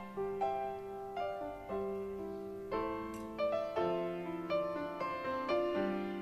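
Background piano music: a gentle melody of single notes, each struck and left to fade, with a new note about every half second.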